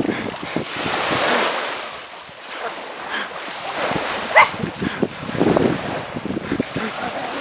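Small waves washing up on a sandy beach, with a small Pekingese dog giving one short, sharp bark about four and a half seconds in.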